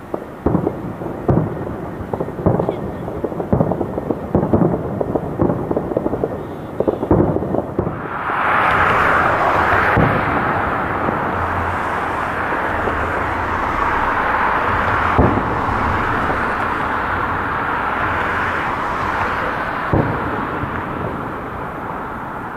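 Fireworks shells bursting in a rapid volley of sharp reports for about eight seconds. A steady loud rushing noise then takes over, with single bursts every few seconds.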